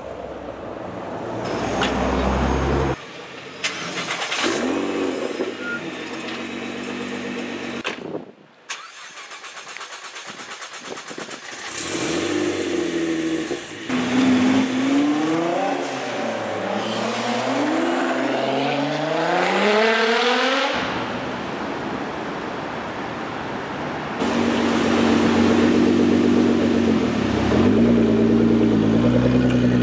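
Nissan GT-R R35's twin-turbo V6 in a string of short street clips: first a car passing close, then the engine revved several times, the pitch climbing and dropping again and again about halfway through. Near the end the engine runs steadily and loudly.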